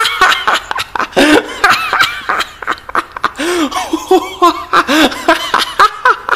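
A man bursts into loud, hearty laughter, breaking out suddenly. It goes in quick repeated bursts whose pitch rises and falls.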